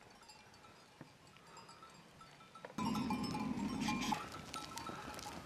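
Bells on a goat herd clinking and tinkling irregularly as the animals move, faint at first and louder from about three seconds in, with a low noise for about a second after that rise.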